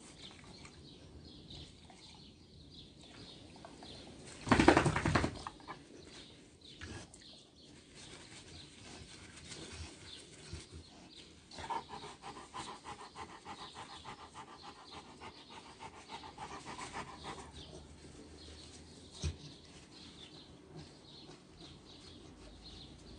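Rottweiler panting in quick, even breaths while its ears are wiped. There is a brief loud burst of noise about five seconds in, and a single knock later on.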